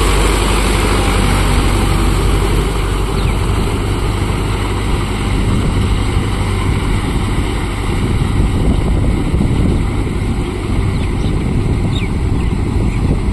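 Tractor diesel engine running steadily. Its low, even note turns rougher and less regular after the first couple of seconds.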